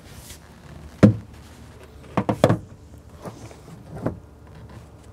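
PVC bog-filter lateral manifold knocking against the bottom and sides of a plastic container as it is set down and shifted into place: one loud knock about a second in, a quick run of three knocks around two and a half seconds, and a lighter one near the end.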